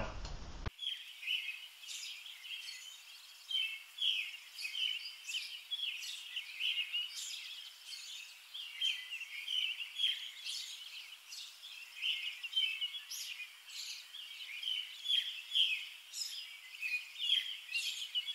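A chorus of many small birds chirping and twittering, short overlapping calls that come in irregularly and start abruptly about a second in.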